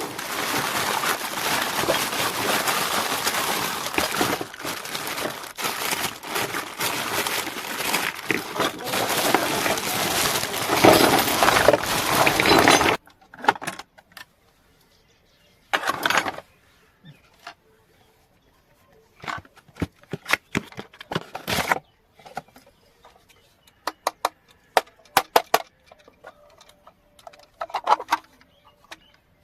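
Packaging crinkling and rustling densely for about thirteen seconds, stopping abruptly, then scattered separate clicks and clinks of small miniature kitchen-set pieces being handled.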